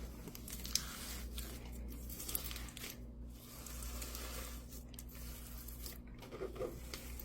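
Thick, glossy gravel slime being stretched and squished by hand, giving irregular crackling, tearing and sticky popping sounds with scattered small clicks.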